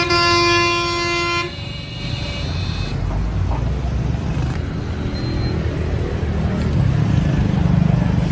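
A car horn blasted and held for about a second and a half, then cut off, followed by the low rumble of engines and street traffic.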